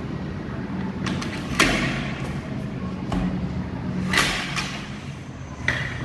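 Aluminium casement window being moved on its metal friction-stay arm: a few separate knocks and clicks from the frame, over a steady low hum.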